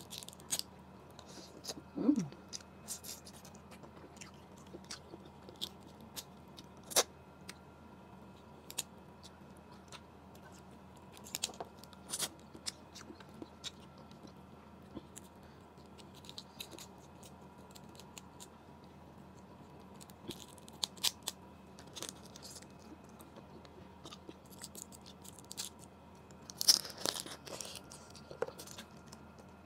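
Eating cooked blue crab by hand: scattered crackles and clicks of the shell being broken and picked apart, with chewing and mouth sounds. There is a louder burst of crunching near the end.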